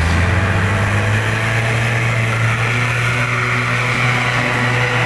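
UAZ off-road vehicle's engine running steadily under load as it drives out of a mud pit, with a rushing hiss over the low engine note.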